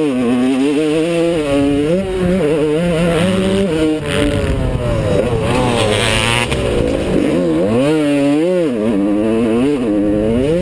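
Yamaha YZ125 two-stroke single-cylinder dirt bike engine, heard close up from a camera on the bike, revving up and dropping back again and again as the rider works the throttle through the track, with a big sweep up and back down near the end.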